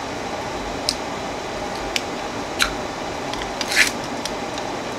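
Fingers picking and peeling the wrapping off a small roll of washi tape: a few short crackles and ticks, the loudest a longer crackle near four seconds in, over a steady background hum.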